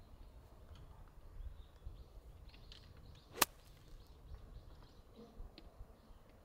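A 9-iron striking a golf ball: one sharp click about three and a half seconds in, over a low steady rumble.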